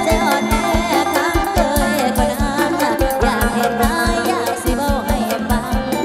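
A live lam sing band playing a fast, steady beat: drums strike about four times a second under a lead melody that bends up and down in pitch.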